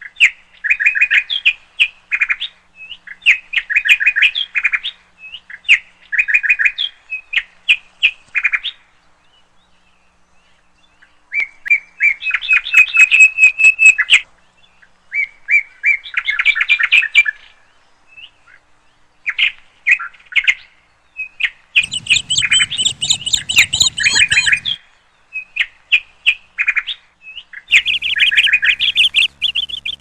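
A Eurasian wren singing over roughly the first nine seconds: short bursts of rapid trills with brief pauses between them. After a short pause, other small songbirds follow with chirping, trilled song phrases.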